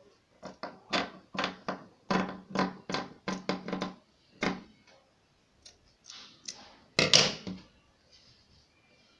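Scissors snipping through fabric on a wooden table, about a dozen quick cuts in the first four seconds or so, then the fabric rustling as it is picked up and handled, loudest about seven seconds in.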